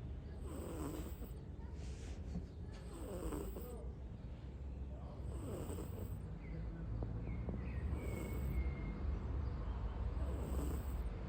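Sleeping domestic cat snoring in an even rhythm, one snore about every two and a half seconds.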